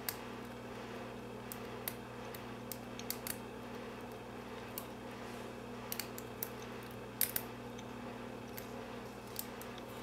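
Lock pick working the pin stack of an LSDA brass padlock held under tension, making small irregular metallic clicks and ticks, the loudest a little past seven seconds in. A steady low hum lies underneath.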